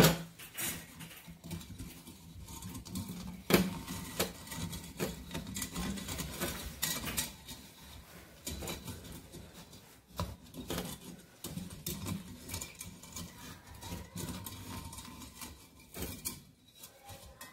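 Irregular light clicks, scrapes and rubbing from hands working a coiled heating-element wire into the grooves of a ceramic room-heater plate, with rustling of a padded jacket sleeve.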